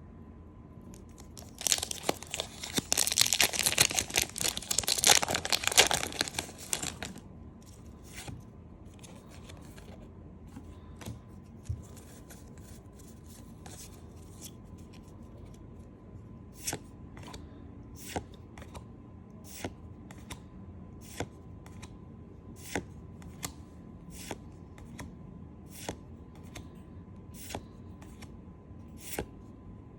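A Pokémon TCG booster pack's foil wrapper torn open, with loud crinkling for about five seconds, then the cards flicked through one at a time, a short snap about once a second.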